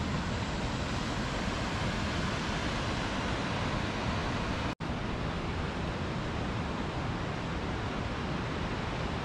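Waterfall water rushing steadily down through a rocky gorge, with a momentary break about halfway through.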